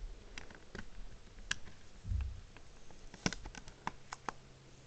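Scattered light plastic clicks and taps of fingers picking at the wrapping and seal on a CD jewel case, with a quick run of several clicks near the end. A soft low thump comes about two seconds in.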